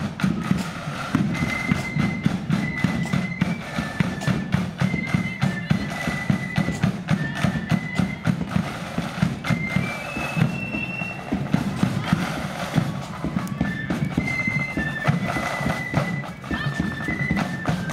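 Loyalist marching flute band playing a tune: massed flutes carry a high, stepping melody over steady drumbeats.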